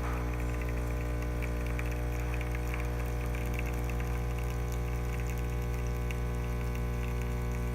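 Gaggia Platinum Vision super-automatic espresso machine's vibratory pump buzzing steadily as it pushes water under pressure through the coffee to pull an espresso shot.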